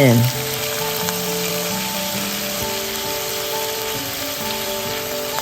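Chicken pieces sizzling as they fry in hot olive oil in a pan, a steady hiss, under background music with held notes.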